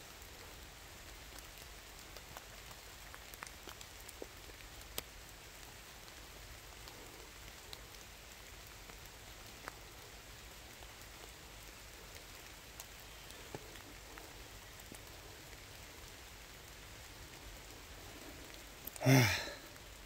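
Steady light rain falling through the forest, with scattered drops ticking. Near the end comes a brief, loud vocal sound, a breath or a voice.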